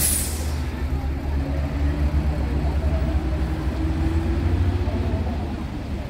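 Mercedes-Benz coach's diesel engine pulling away from standstill: a short sharp hiss of released air at the start, then a steady low engine rumble whose note rises slowly as the bus gathers speed.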